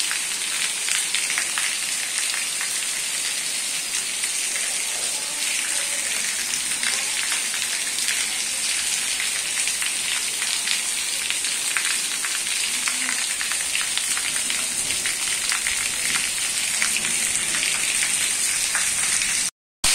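Heavy tropical rain falling steadily, a dense hiss with the patter of many drops. The sound cuts out briefly just before the end.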